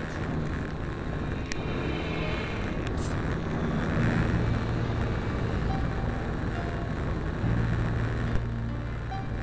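Onboard sound of an RC model plane in flight: wind rushing over the microphone with the steady hum of its motor and propeller, which grows stronger about four seconds in and again near the end.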